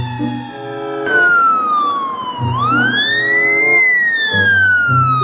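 Ambulance siren wailing: one pitched tone that slowly falls, climbs again about two and a half seconds in, then falls once more. A low repeating tune plays underneath.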